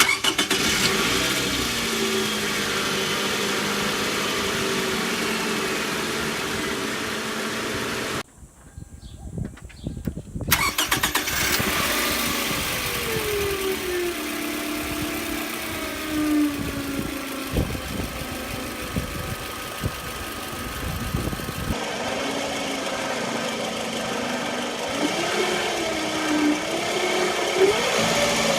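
2009 Toyota Camry 2.4-litre four-cylinder engine running with a loud whine from a failing alternator, the whine's pitch sliding down and up. The sound drops away briefly about eight seconds in, then comes back.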